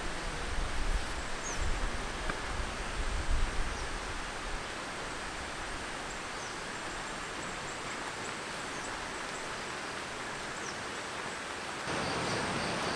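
Steady rain falling, heard as an even hiss, with low wind rumbles on the microphone during the first few seconds. A few faint high chirps sound over it, and near the end the rain gets louder.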